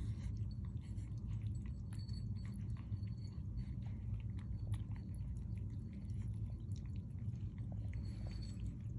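Two cats, a British shorthair and a lynx point Siamese kitten, chewing and smacking wet cat food from ceramic bowls: a steady stream of small, irregular wet clicks over a low steady hum.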